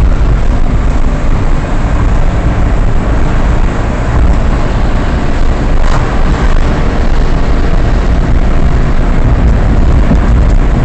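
A car driving along a road, heard from inside: a steady, loud low rumble of engine and tyre noise. A brief click about six seconds in.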